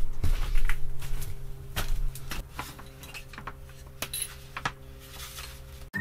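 Scattered light metallic clinks and knocks of tools and hardware being handled, over a steady low hum; louder in the first second or two, then fainter.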